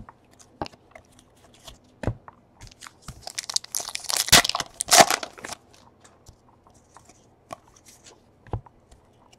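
A baseball card pack's wrapper crinkling and tearing open, loudest from about three to five and a half seconds in, among light taps and clicks of cards being handled.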